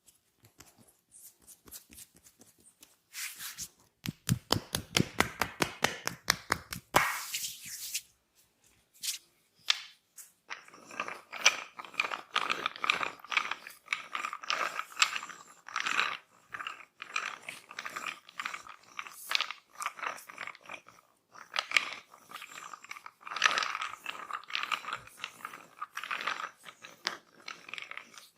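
Hands working over oiled skin, close-miked: a quick run of rapid, evenly spaced slaps a few seconds in, then steady wet rubbing and kneading with small crackling, squelching sounds.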